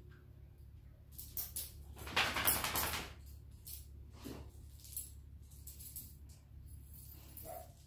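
A dog's leash and harness fittings jingle and its claws click on a tile floor as it moves about the room, with a louder scraping rustle about two seconds in.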